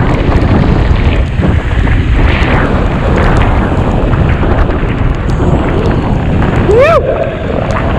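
Wind buffeting the helmet or chest camera's microphone on a downhill mountain bike run at speed, over the clatter of the bike on a rough trail. About seven seconds in comes a short whoop that rises and falls in pitch.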